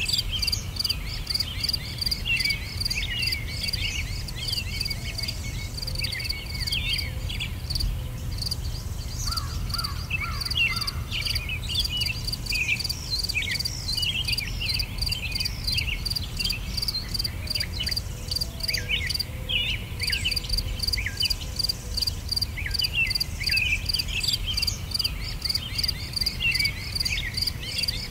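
Insects chirping in a fast, even pulse, with birds calling in short chirps and whistles over it, and a low rumble underneath.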